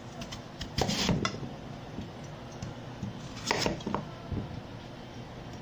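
Housework clatter of hard kitchenware knocked together, in two short bursts, about a second in and again about three and a half seconds in, with a few lighter clicks between.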